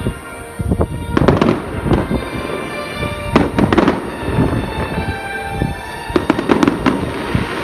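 Aerial fireworks going off in clusters of sharp bangs and crackles, several volleys over a few seconds, with music playing underneath.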